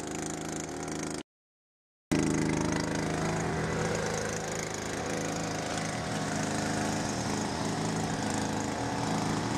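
SolarCleano F1 battery-powered solar-panel cleaning robot running, its brush and track motors giving a steady, even hum. The sound cuts out completely for about a second near the start, then comes back a little louder.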